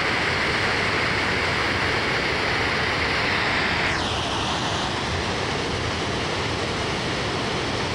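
Water spilling over a river dam and churning into whitewater below, a steady rushing noise that turns a little softer about four seconds in.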